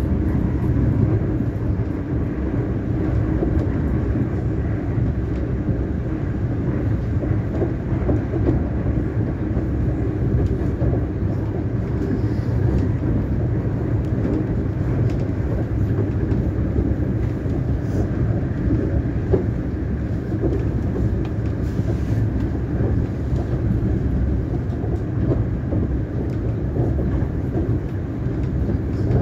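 Siemens Nexas electric multiple-unit train running steadily along the track: a continuous low rumble of wheels on rail, with a few faint clicks.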